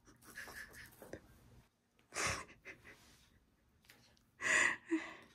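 A parrot making breathy, laugh-like "ha-ha" sounds in a few short bursts, once about two seconds in and twice more near the end.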